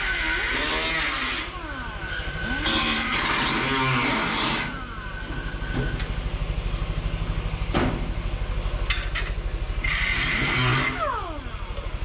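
Pneumatic cut-off tool cutting through sheet-steel cab corner in three bursts: near the start, from about three to five seconds in, and about ten seconds in. Its high whine falls away each time the trigger is released. A steady low hum runs underneath.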